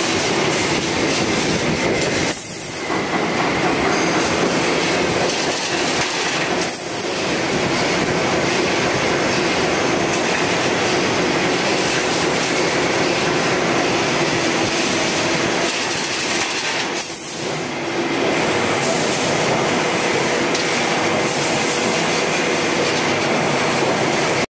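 XLC 2D CNC wire bending machine running in automatic mode, feeding and bending steel wire into rectangular frames: a loud, steady mechanical noise that drops off briefly three times.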